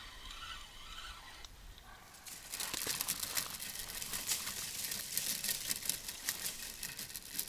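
Grass and weeds rustling and crackling as a hooked fish is lifted out and swung through the bankside vegetation. The crackling starts about two seconds in and carries on densely after that.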